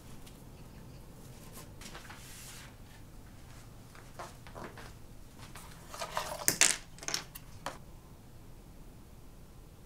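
Hands handling small plastic pieces, such as cable holders: scattered light clicks and rustles starting about four seconds in, with a cluster of sharper clacks a little past the middle, over a quiet room hum.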